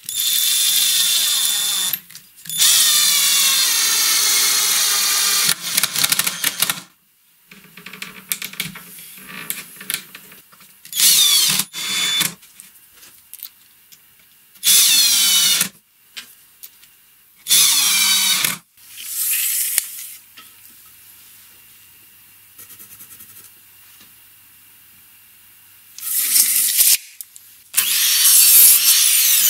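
Cordless drill/driver driving wood screws through a metal handle's mounting flanges into wood, in several separate bursts of motor whine that stop and start. Near the end comes a longer, noisier run from a mitre saw.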